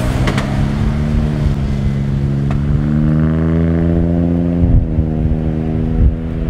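Boeing 767 jet engines spooling up at the start of the takeoff roll: a loud low rumble with a droning hum that rises slowly in pitch, then shifts a little after four and a half seconds.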